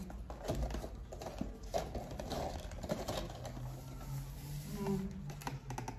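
Light, irregular clicks and clatter of dishes and cutlery being handled.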